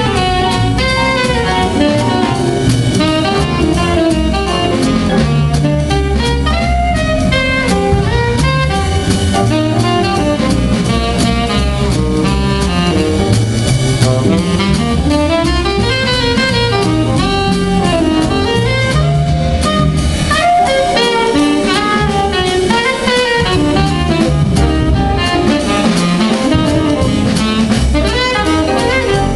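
Jazz big band swinging, with an alto saxophone soloing in quick runs over drum kit and band accompaniment.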